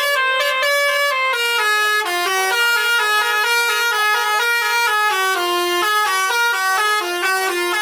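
Indonesian bus 'telolet' musical air horn playing a long, unbroken tune: several horn notes sound at once and change pitch several times a second.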